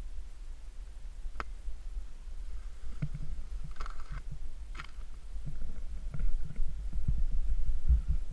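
Steady low rumble of wind buffeting and a snowboard running over packed snow, picked up by a GoPro's microphone, with scattered thuds and a few sharp knocks; the rumble grows louder in the last two seconds.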